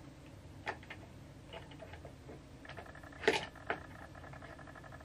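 Small plastic clicks and taps from a GoPro Hero 8 being handled and fitted into its mount, the loudest click a little past halfway. A faint fast ticking runs through the second half.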